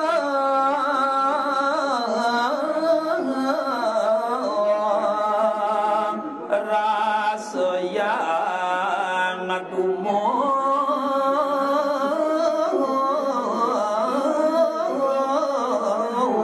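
A voice singing a Balinese geguritan verse (tembang) in slow, melismatic phrases, holding long notes that bend and waver, with short breaks between phrases.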